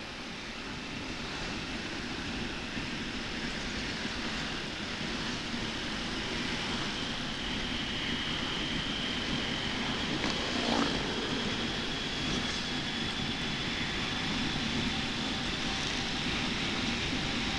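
Honda TMX125 Alpha's single-cylinder four-stroke engine running on the road with steady wind noise, growing slowly louder as the bike picks up speed. One brief knock about eleven seconds in.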